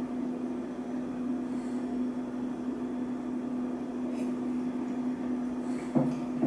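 Steady low hum of room noise, with a faint sip from a glass about four seconds in. Near the end a drinking glass is set down on the tabletop with a short knock.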